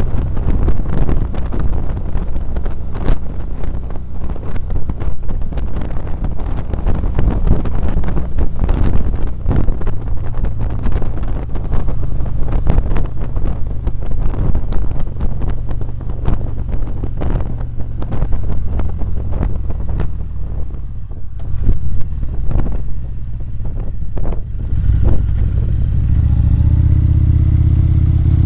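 Wind buffeting the microphone of a camera on a moving motorcycle, over the rumble of its engine. Near the end the engine note becomes steadier and climbs in pitch as the bike accelerates.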